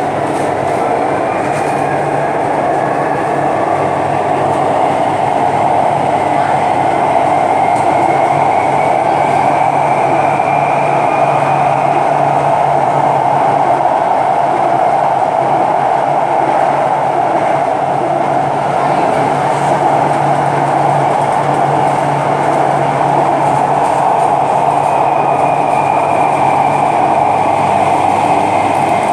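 Chennai Metro train running at speed through an underground tunnel, heard from inside the car: a loud, steady rumble of wheels on rail with a low hum underneath and a faint whine that slowly rises and falls in pitch.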